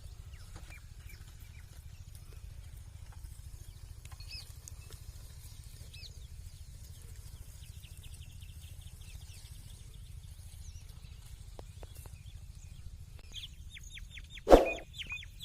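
Rural outdoor ambience: birds chirping faintly and a short high trill over a steady low rumble. Near the end comes a single sudden loud knock.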